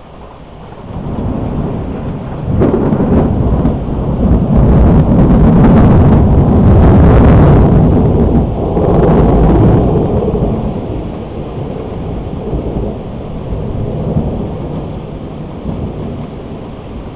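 A long roll of thunder. A low rumble builds about a second in and a sharp crack comes soon after. It rolls at its loudest for several seconds, then dies down to a lower rumble that carries on.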